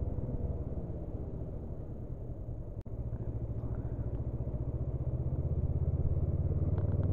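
Honda CB500F's parallel-twin engine running under way, a low, even pulsing. It drops out sharply for a moment about three seconds in, then grows steadily louder as the throttle is opened.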